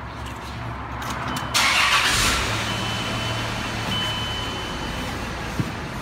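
Car engine starting about a second and a half in, after a low hum, then running steadily at idle.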